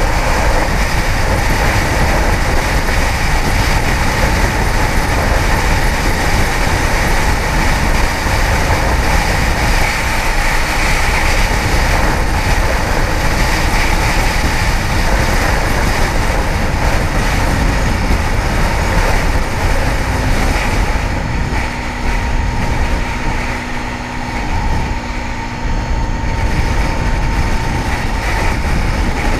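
Steady rushing wind noise on a helmet-mounted mic with a Kawasaki ZX-10R's inline-four engine running underneath at riding speed. About twenty seconds in, the rush eases for a few seconds and a steady low hum shows through, then it builds again near the end.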